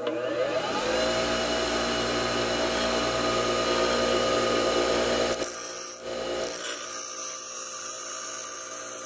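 Bench grinder motor winding up to speed over the first second, then running with a steady hum. From about five seconds in, a steel twist drill bit is pressed against the spinning grinding wheel to sharpen its cutting edges, adding a high grinding hiss with sparks that breaks off briefly once.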